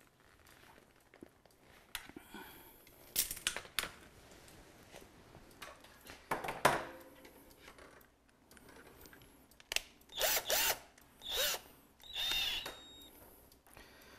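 Cordless drill run in several short bursts, its pitch rising and falling as the trigger is squeezed and eased, spinning two wires held in its chuck to twist them into a twisted pair. The longest bursts come in the last few seconds.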